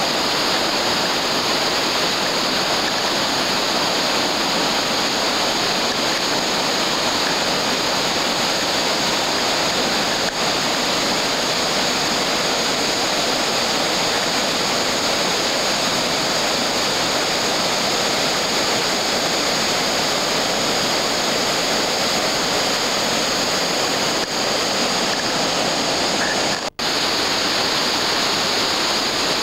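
Whitewater river rapids rushing, a loud, steady noise of fast water over rocks. A short dropout near the end.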